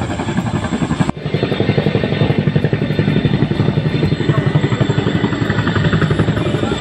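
Boeing CH-47 Chinook tandem-rotor helicopter flying low past, its rotors beating in a rapid, even rhythm. The sound breaks off for an instant about a second in, then picks up again.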